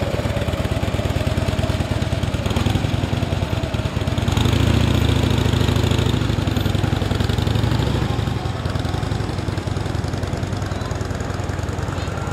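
A vehicle engine running steadily, swelling louder about four seconds in and easing off again after about six seconds.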